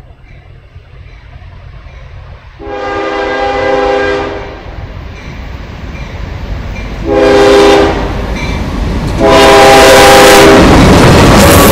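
CSX diesel freight locomotive's air horn sounding for a grade crossing as the train approaches: a long chord blast, a short one, then another long one, over a rising rumble. Near the end the locomotive passes close with a loud rush of engine and wheel noise.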